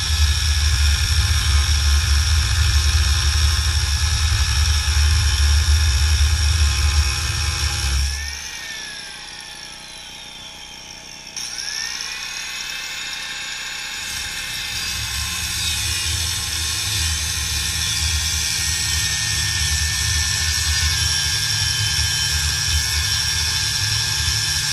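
Angle grinder with a cut-off wheel cutting through steel angle iron, a steady high whine over a heavy grinding rumble. About eight seconds in it is let off and winds down, then spins back up a few seconds later and bites into the steel again.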